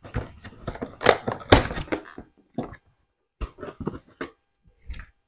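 Cardboard box being opened and its packaging handled: irregular crackles, rustles and knocks. The loudest knocks come about a second and a second and a half in, with lighter clicks after a short pause.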